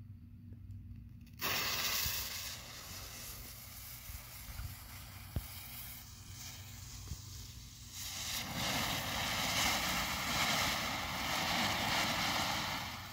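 Lit fuse of a multi-tube ground fountain firework hissing, catching suddenly about a second in. About eight seconds in, the fountain erupts and the hiss grows louder and fuller as it sprays sparks.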